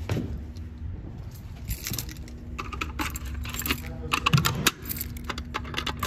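A bunch of keys jangling and clinking in the hand in quick clusters, loudest a little past the middle, as a key is brought to the reset lock of a Simplex fire alarm pull station. A low steady hum runs underneath.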